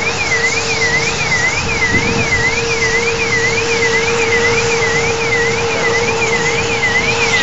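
Mil Mi-24 helicopter running on the ground before takeoff: a steady, noisy engine sound with a constant hum. Over it, a warbling tone rises and falls evenly about twice a second.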